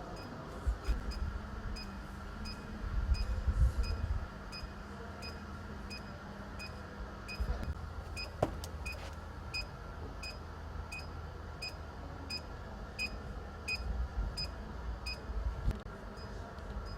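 Short high electronic beeps repeating evenly, about two a second, over a steady low hum and bursts of low rumble.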